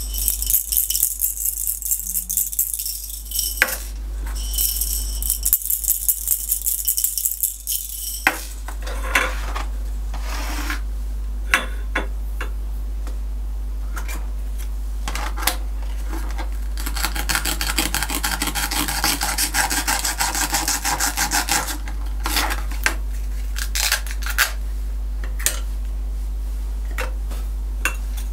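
Plastic toy cookware and toy food being handled: scattered clicks and clatters, with several stretches of dense, rapid rattling, over a steady low hum.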